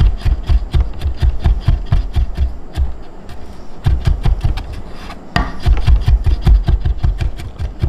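Knife chopping quickly on a wooden cutting board, about five strokes a second, each with a dull thud from the board. It stops briefly near the middle and then carries on, with one sharper, louder stroke.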